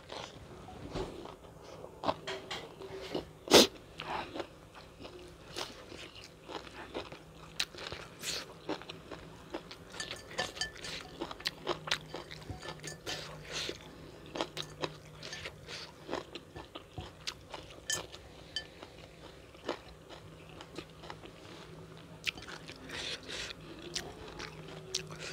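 Close-miked eating: repeated crisp crunching bites and chewing of the food, with one sharper, louder crunch about three and a half seconds in.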